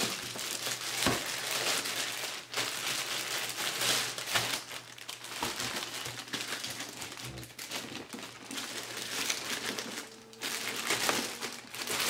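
Clear plastic wrapping bag crinkling and rustling as it is worked off a guitar effects unit, with a brief lull about ten seconds in.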